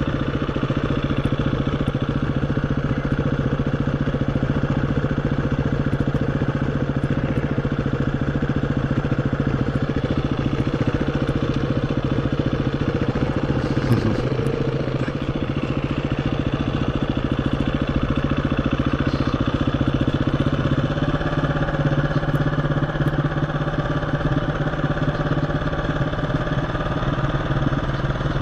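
KTM 350 EXC-F's single-cylinder four-stroke engine running steadily at low revs, close to idle, with a brief rise and fall in pitch about halfway through.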